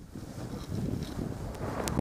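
Blizzard wind buffeting the microphone, an uneven noise that swells and dips.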